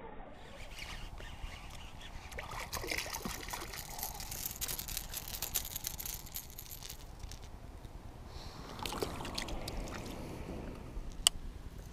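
Small splashes and gurgles of a fishing lure being worked across the water's surface close to shore, with a single sharp click near the end.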